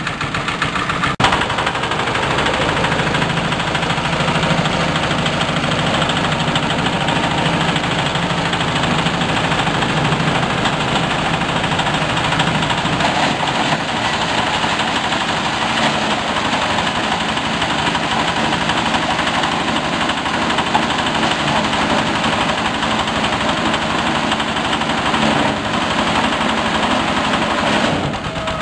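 Small stationary engine running steadily, belt-driving a green forage chopper-grinder whose rotor spins with nothing fed in yet, a dense, even mechanical din. A single sharp knock about a second in.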